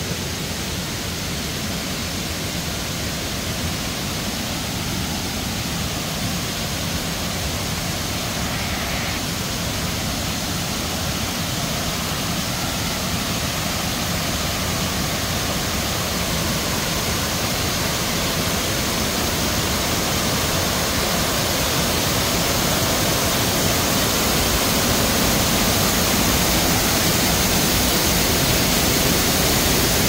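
Low, tiered waterfall rushing steadily over broad rock steps, in heavy rainy-season flow. The sound grows gradually louder.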